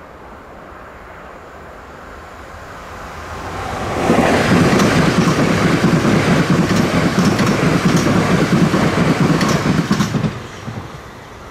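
Passenger train passing over a level crossing: the noise builds for a second or so, then the wheels and carriages rush past loudly for about six seconds, with a few sharp clicks as wheels cross rail joints. It cuts off sharply near the end as the last carriage clears.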